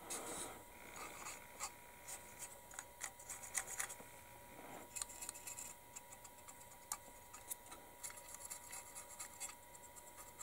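Fine paintbrush scrubbing and dabbing on a plastic scale model's leaf springs, spreading wet rust pigment, heard as an irregular run of faint scratchy ticks and rubs.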